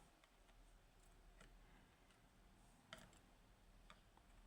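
Near silence with a few faint, sharp clicks of small metal lock parts being handled, the clearest about three seconds in.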